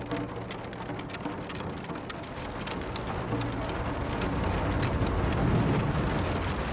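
A dense patter of many small hits, like heavy rain, over a low held tone, growing louder toward the end.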